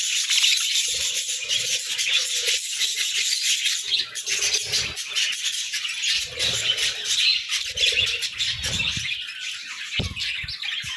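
A flock of budgerigars chattering and chirping continuously, a dense mix of high warbles and clicks, with lower fluttering sounds coming and going.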